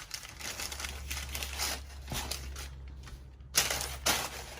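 Rustling and crinkling of packaging being handled, with a louder crinkle about three and a half seconds in.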